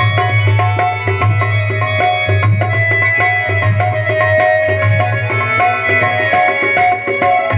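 Indian devotional music: tabla keeping a steady rhythm under a melody of held, stepping notes, with a pulsing bass.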